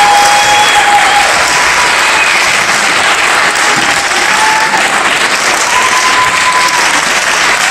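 Applause from a concert audience and choir, loud and steady throughout.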